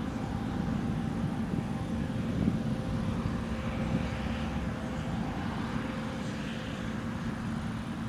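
John Deere C670i HillMaster combine harvester running steadily, a constant low drone with a held hum over it.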